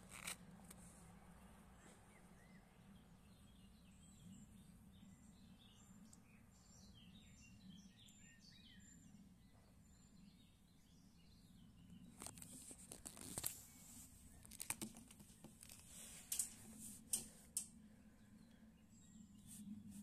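Faint outdoor quiet with a steady low rumble and scattered bird chirps through the first half. Later come a handful of sharp clicks and rustles as the phone is handled.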